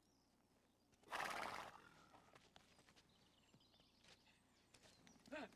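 A horse snorts once about a second in: a short, noisy blow with a fluttering texture. Faint scattered hoof clicks follow.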